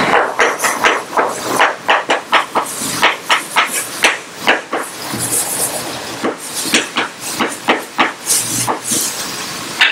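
Chalk writing on a blackboard: a quick, irregular run of taps and short scratching strokes.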